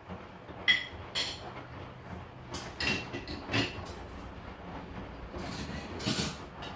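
Dishes and glasses clinking and knocking against each other and the dishwasher racks as the machine is loaded. There are several sharp clinks, one ringing briefly about a second in, with lighter rattling in between.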